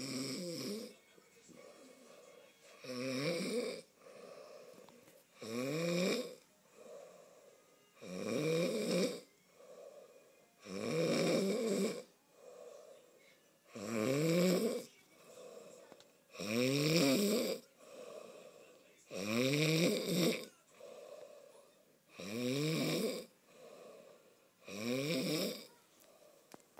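A man snoring heavily and rhythmically. There is a loud, rattling snore about every three seconds, its pitch climbing through each one, with a softer breath between snores.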